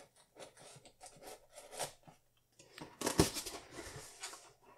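Packing tape on a cardboard box being slit with a blade, a series of short scratchy strokes. About three seconds in the cardboard flaps are pulled open with a louder rustling and a dull knock.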